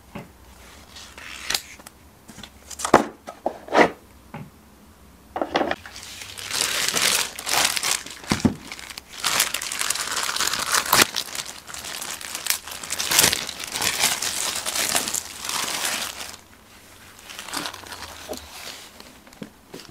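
A thin clear plastic bag crinkling and rustling as it is worked off a tall speaker, dense and continuous through the middle and easing off near the end. Before that come a few sharp knocks and taps as items are lifted out of the cardboard box and its molded-pulp insert.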